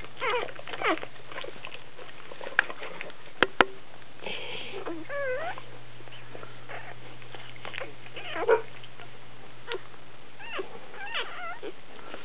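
Repeated short, high-pitched squeaks and whines that rise and fall in pitch, from dogs at a Doberman's whelping. Two sharp clicks come about three and a half seconds in, over a steady low hum.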